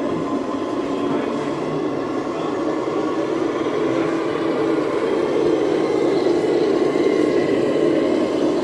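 Radio-controlled scale model truck with a tipper trailer driving up and passing close, giving a steady engine-like drone that grows louder as it nears.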